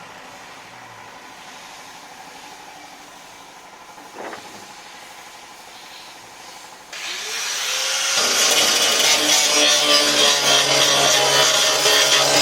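A power tool starts up about seven seconds in, its motor winding up over a second, then runs loudly and steadily. Before that there is only a quieter steady background with one short sound about four seconds in.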